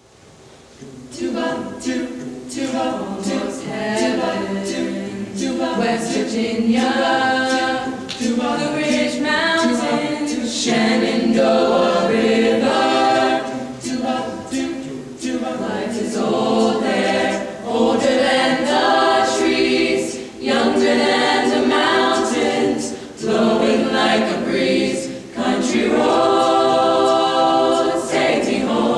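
Youth a cappella choir of mixed boys' and girls' voices singing in close harmony without accompaniment. The voices come in about a second in and sing in phrases with brief breaks for breath.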